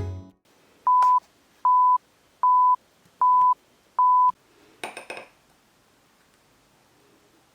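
Alarm beeping five times, short even single-pitch beeps about one every 0.8 seconds, then a brief rustle about five seconds in.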